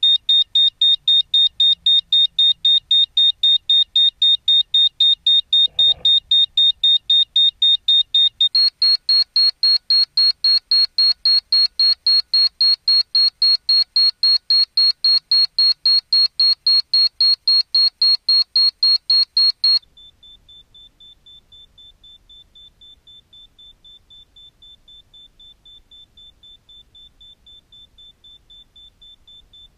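Rapid, evenly repeating high-pitched electronic beeping from a beeper on a high-altitude balloon payload. The pitch steps up slightly about eight seconds in, and about twenty seconds in the beeping drops to faint and a little lower.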